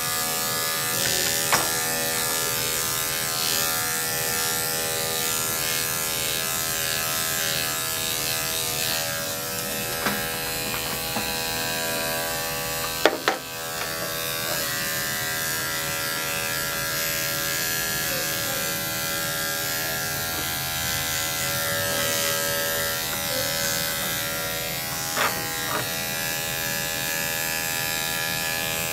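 Corded electric dog grooming clippers running with a steady hum as they shave a dog's curly coat short. A few short sharp clicks break in, the loudest about 13 seconds in.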